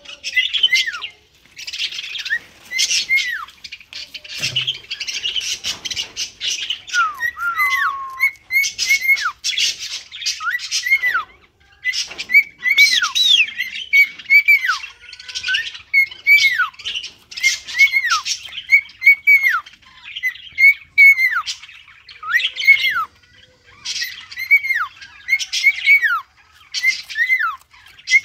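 Cockatiel calling over and over, each whistled call rising and then sliding down, about one a second, mixed with harsher squawks.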